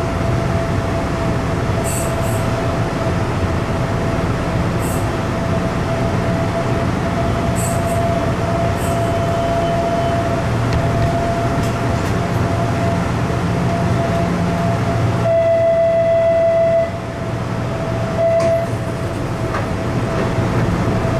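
Hanshin red-body commuter train running, heard from inside the driver's cab: steady rumble and wheel noise with a constant whine, and a few light clicks in the first half. A louder pitched tone sounds for about a second and a half past the middle, then briefly again.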